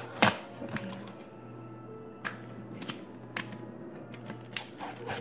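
Scattered light clicks and handling noise as a slime container is opened and the slime taken out, over a steady low hum.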